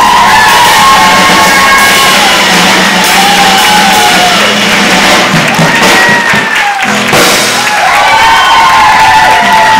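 Live acoustic guitar and hand percussion playing a song while several voices shout and whoop along.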